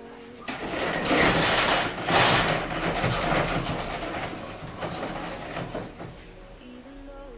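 Roller shutter being raised over a window: its slats rattle and rumble as they roll up for about five seconds, loudest near the start and tailing off.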